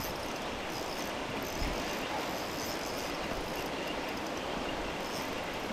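Heavy rain falling on a pond and the surrounding vegetation: a steady, even hiss.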